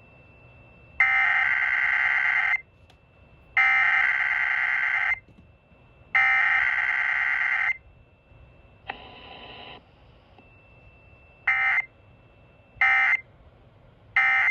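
Emergency Alert System SAME header: three loud bursts of shrill, warbling digital data tones, each about a second and a half long. Three short bursts of the end-of-message code come near the end. A quieter, brief sound comes between the two sets, and a faint steady high tone runs in the gaps.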